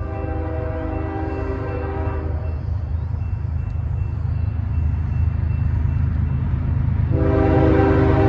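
Canadian Pacific diesel locomotive's air horn sounding two long blasts, the first lasting a little over two seconds and the second starting about seven seconds in, over the low rumble of the approaching freight train, which grows steadily louder.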